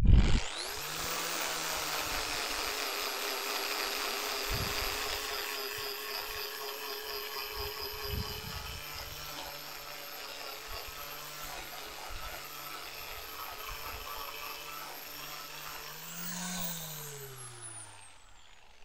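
Corded angle grinder fitted with a sanding disc, sanding the sawn face of a wooden log round. The motor spins up with a rising whine, runs steadily against the wood, then about sixteen seconds in its pitch briefly rises before it winds down with a falling whine.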